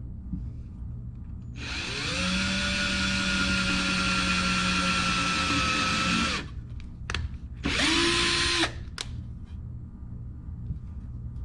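Electric drill pre-drilling holes in wooden birdhouse boards. It speeds up, runs steadily for about five seconds and winds down, then gives one short second burst about a second later.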